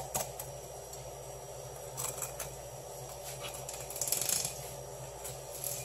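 Kitchen knife cutting along a sea bass fillet on a wooden cutting board: short scratchy rasps of the blade and handling of the fish on paper towel, the loudest rasps about four seconds in, over a steady low hum.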